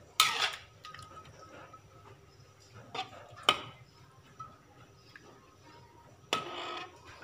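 Stainless-steel spatula clinking and scraping against a metal wok while fish is stirred in a thin gravy: a few sharp clinks, the loudest just after the start, and a longer scrape near the end.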